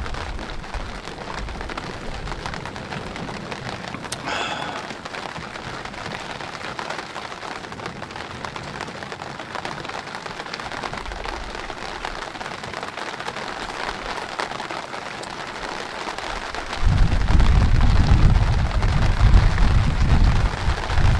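Steady rain falling on a vehicle awning and the ground around it. About three-quarters of the way through, a deep low rumble sets in suddenly and keeps going.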